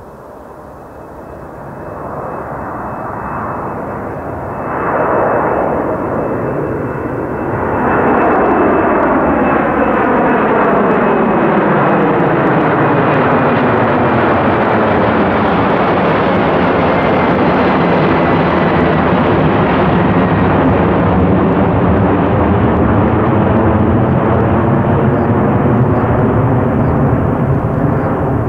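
Four General Electric CF6 turbofans of a Boeing 747-400 at go-around thrust as the jet climbs low directly overhead. It is a rising jet roar that reaches full loudness about eight seconds in and then stays steady, with a high fan whine that slowly falls in pitch as the aircraft passes.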